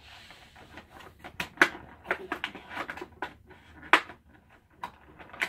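Plastic packaging in a toy blaster's box crackling and rustling in irregular sharp clicks as it is cut with scissors and pulled free, with the loudest snaps about one and a half and four seconds in.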